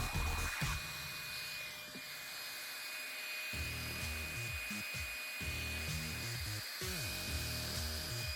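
Hand-held blow dryer running steadily with a high motor whine, heating the glued cardboard display box to work it apart, with background music.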